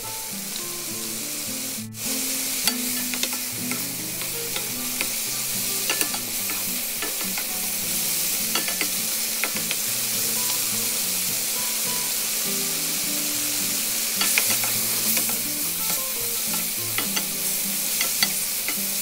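Lobster halves and minced pork sizzling steadily in a hot stainless-steel wok as they are stir-fried until the lobster cooks through, with a wooden spatula scraping and clicking against the pan.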